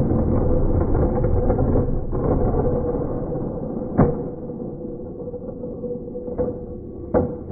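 A toy vehicle running with a steady mechanical noise and a faint hum, louder in the first couple of seconds, with sharp clicks about four seconds in and twice near the end.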